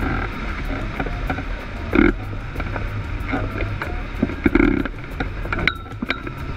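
Wind rushing over a hang glider and its mounted camera, a steady low rumble with irregular rattling and knocking. Two louder buffeting knocks come about two seconds in and just past the middle.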